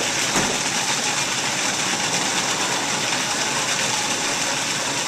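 Food processor motor running steadily, its blade churning tomatoes, sun-dried tomatoes and garlic into a chunky raw marinara purée.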